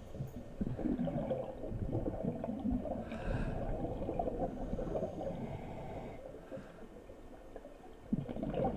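Muffled underwater gurgling and bubbling while scuba divers work along the muddy bottom, with the breathing noise of their scuba gear. The sound is irregular, and quieter for a couple of seconds near the end.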